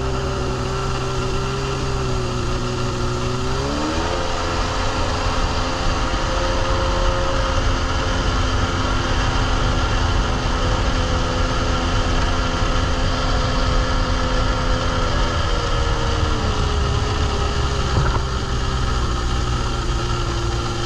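Sea-Doo jet ski's two-stroke Rotax twin-cylinder engine running under way. Its pitch rises as the throttle opens about four seconds in, holds steady, and falls back at about sixteen seconds. This is a water test of the low-speed carburetor jetting, accelerating from quarter to half throttle.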